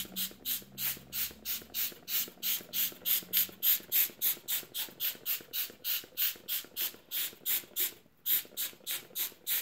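Hand trigger spray bottle of grill cleaner pumped rapidly, each squeeze a short hiss, about four a second, as the liquid is sprayed onto a saw blade. The spraying pauses briefly a little after eight seconds in, then carries on.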